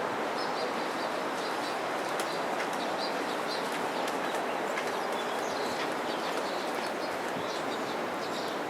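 Flood water of the overflowing Ōta River rushing with a steady, even noise, with faint short high chirps scattered over it.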